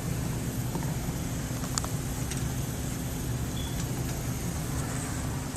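A steady low mechanical hum with a few faint clicks and taps about two seconds in.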